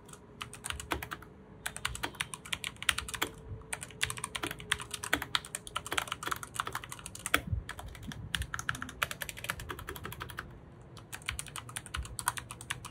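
Typing on a Redragon K599 wireless mechanical keyboard with Outemu linear red switches: rapid runs of keystroke clicks, pausing briefly twice.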